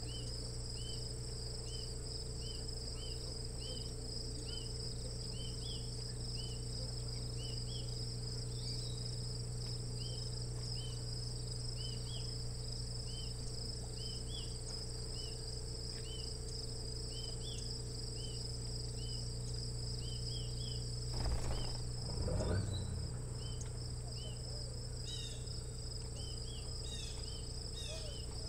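Late-summer insect chorus: a steady high trilling with a short chirp repeating about twice a second, over a steady low hum. Two brief louder rustles come about three-quarters of the way through.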